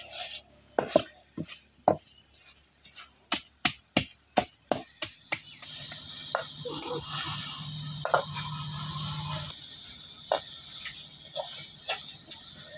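A wooden masher knocks against an iron karai in quick, irregular strikes as fish bharta is mashed. After about five seconds this gives way to a steady sizzle of onion, garlic and green chillies frying in the karai, with a metal spatula scraping and tapping now and then.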